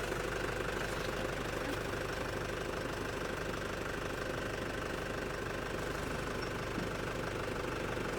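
Vehicle engine idling steadily just after being started.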